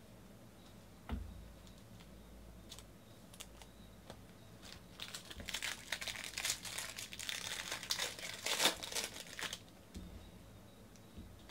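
A foil-wrapped baseball card pack being torn open, its wrapper crinkling for about four seconds in the middle. One short knock about a second in.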